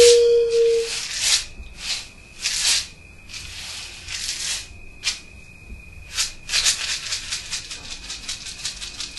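A maracá rattle shaken in separate short bursts, the shakes coming quicker and lighter near the end. A steady held tone cuts off about a second in.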